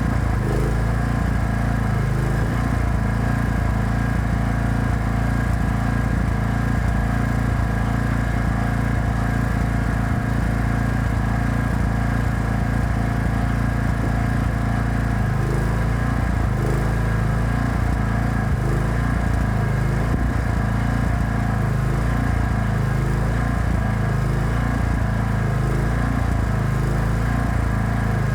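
Small petrol engine of a welding generator running steadily at a constant speed, with a slow, even wavering in its note from about halfway through.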